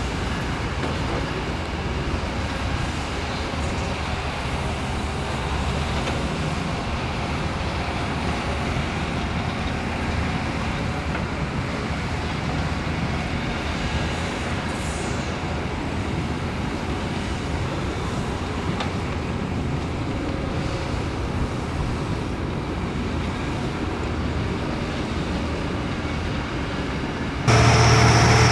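Heavy diesel construction machinery running steadily at work. Near the end a louder engine with a steady low hum cuts in suddenly.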